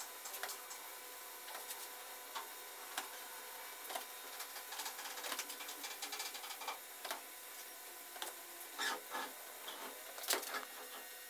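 Scissors snipping through upholstery fabric: quiet, irregular clicks of the blades closing, with a few louder snips near the end.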